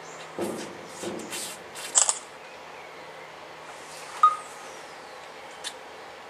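Quiet room tone with a steady low hum and scattered rustles and clicks of handling, the sharpest about two seconds in. A single short electronic beep comes about four seconds in.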